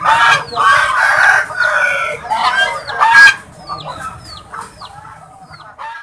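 A group of white domestic geese honking loudly and repeatedly, the calls crowding together over the first three seconds or so and then thinning out. Short, high, falling chirps of small birds sound throughout, and the sound cuts off at the end.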